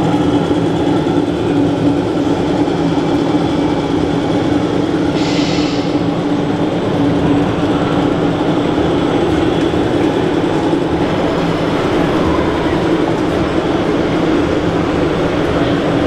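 Steady, loud mechanical rumble with a constant low hum, and a brief hiss about five seconds in.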